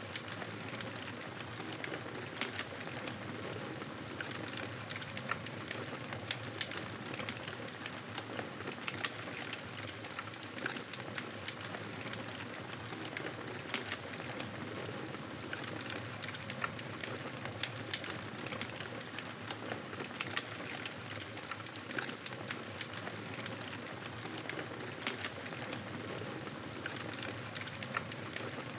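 Wood campfire crackling: a steady rush of noise with many small, sharp pops.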